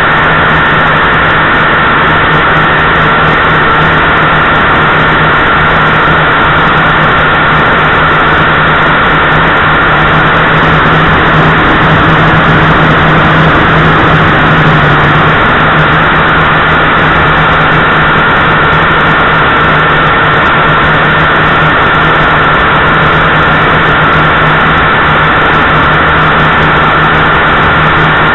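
JJRC H8C quadcopter's motors and propellers droning steadily in flight, picked up loud and close by its onboard camera, swelling slightly in the middle.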